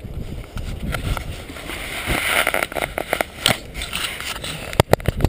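Dry grass and heather rustling and scraping against a body-worn camera and clothing as the wearer moves through the vegetation, with a few sharp knocks near the end.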